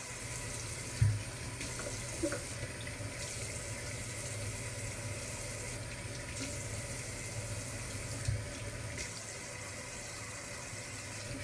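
Water running steadily from a tap into a sink, with a low hum underneath and two short knocks, one about a second in and one about eight seconds in.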